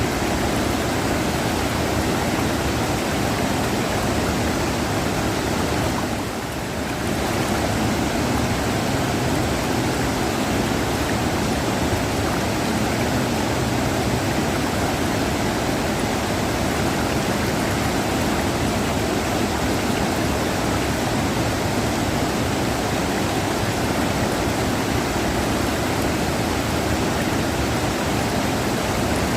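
River water rushing, a steady full rush of flowing water with a brief slight dip about six seconds in.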